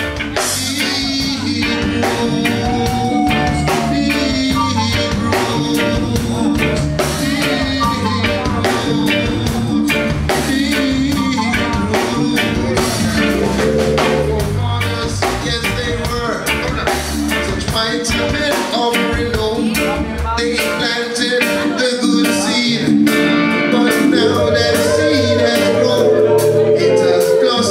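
A live band with a male singer: a man sings into a microphone over drum kit, electric guitar and bass guitar playing a steady beat. The deep bass drops out for a few seconds about two-thirds of the way through, then returns.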